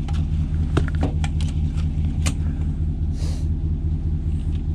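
Pickup truck engine idling steadily, with a few light clicks and knocks of gear being handled in the truck bed.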